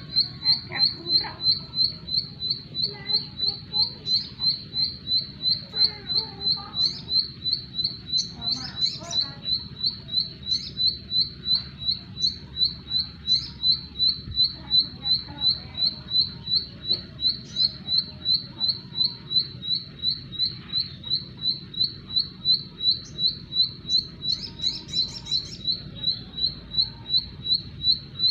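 Ciblek sawah (a prinia) calling one short, high note over and over at an even pace, about two and a half times a second, with fainter chirps from other birds behind it.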